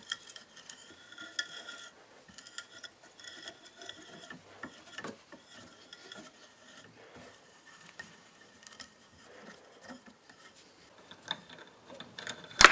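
Dormer hand tap being turned to cut an M6 thread in a metal plate: an irregular metal-on-metal scraping and squeaking in short strokes, with one sharp metallic click near the end.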